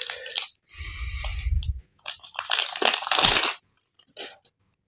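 Close-miked handling noise: hands rubbing and turning a smartphone, making scratchy, crunchy rustles in several short bursts. A low thump runs under the burst about a second in, and the loudest scraping comes about two and a half to three and a half seconds in.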